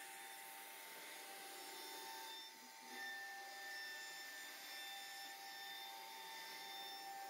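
CNC router spindle running steadily as it carves a relief pattern into a wooden panel, a constant whine over the hiss of cutting, with a short dip about two and a half seconds in.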